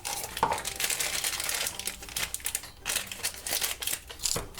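Toy packaging, paper and plastic wrapping, crinkling and rustling as it is handled and opened by hand.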